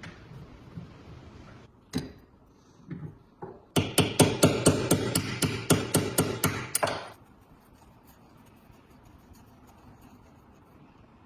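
Hammer blows on the metal parts of a rusty tile cutting machine. There is a single strike, a couple more, then a quick run of about five ringing blows a second that lasts some three seconds and stops.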